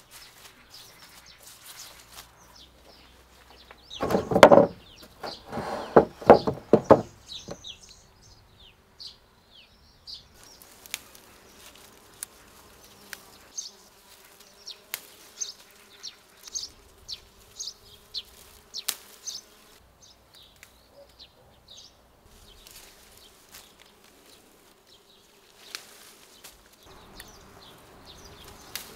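A bee buzzing steadily among the flowering rugosa rose blooms, with small birds chirping. A loud call in several parts stands out about four seconds in.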